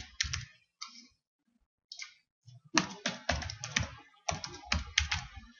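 Computer keyboard typing: a few scattered keystrokes, then two quick runs of rapid keystrokes in the second half as a password is entered.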